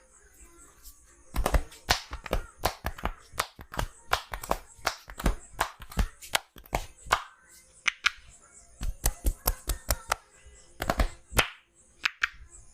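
Hands slapping and clapping on the body in a fast percussive massage, about three to four sharp strikes a second in two runs with a short pause between, over faint background music.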